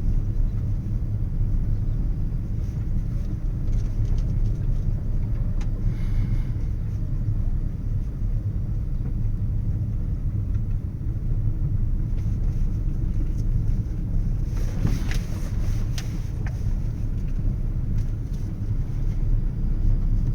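Steady low rumble of a car driving on the road, with a short cluster of clicks and hiss about fifteen seconds in.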